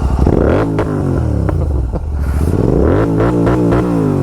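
Royal Enfield Continental GT 650 parallel-twin engine with a loud Red Rooster aftermarket exhaust, free-revved twice, its pitch climbing and falling back each time. Sharp pops and crackles come from the exhaust as the revs drop.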